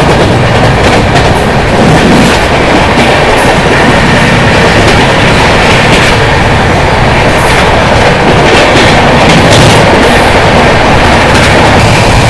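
Express passenger train running along the line, heard from the coach's open doorway: a steady loud rush of wheel, rail and wind noise, with irregular clicks and clatter as the wheels pass over track joints and points.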